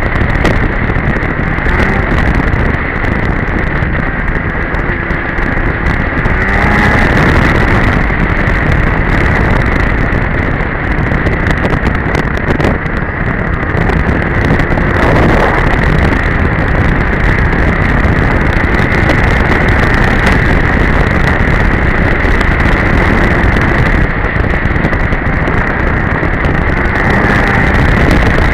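A 2002 Polaris Edge snowmobile's two-stroke engine running loud and steady under way on the trail, with a couple of brief rises and falls in revs, and wind rushing over the microphone.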